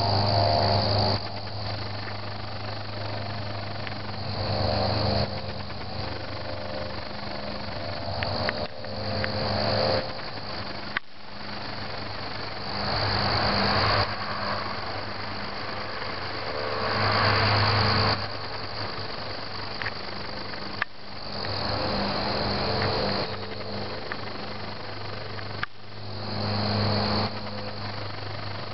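Crickets chirping steadily at a high pitch over a low steady hum, with a wash of noise swelling up every four seconds or so.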